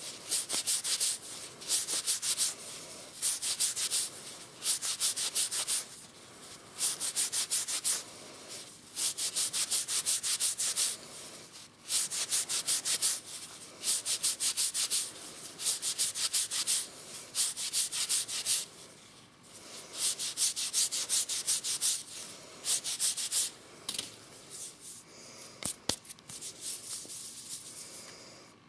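Hand-sanding a turned elm egg with a non-woven abrasive pad: repeated bursts of quick back-and-forth scrubbing, a hiss of fibres on wood, each lasting about a second with short pauses between. The strokes thin out near the end as the sanding finishes.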